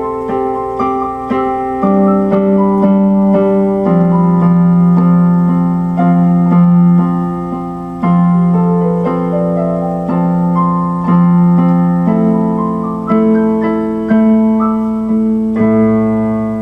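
Electronic keyboard played with a piano sound: a slow piece of chords and melody notes, each struck about once a second and left to ring. A low bass note comes in near the end.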